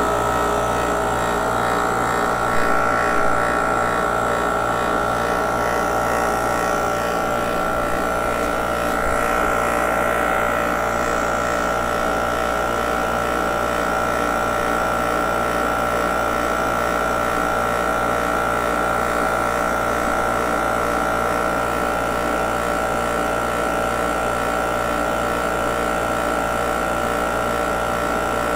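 Mastercool 69110 refrigerant recovery machine running steadily as its compressor draws refrigerant out of a car's A/C system: a constant hum with an even, rapid throb underneath.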